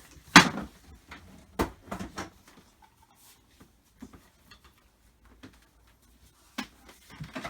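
Hard plastic knocks and clunks as a Titan 130 bar pressure washer is handled and set down: one loud thump about half a second in, a few smaller knocks after it, then more handling near the end.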